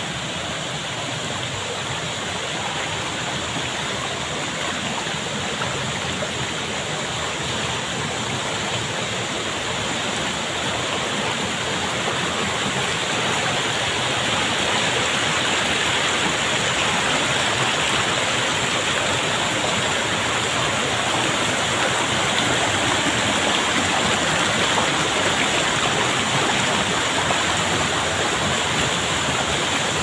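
A shallow rocky stream rushing over stones and small rapids, with a waterfall upstream: a steady rush of water that grows somewhat louder about halfway through.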